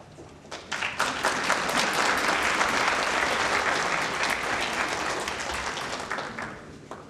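Audience applauding: a few scattered claps build into full applause about a second in, which holds and then dies away near the end.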